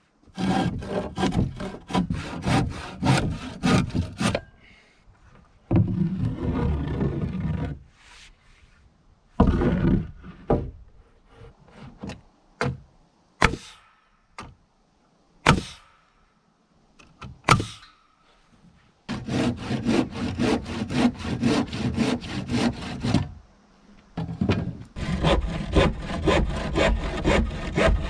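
Handsaw cutting through a 2x4 stud in runs of quick back-and-forth strokes. In the middle stretch the sawing gives way to a series of separate sharp knocks.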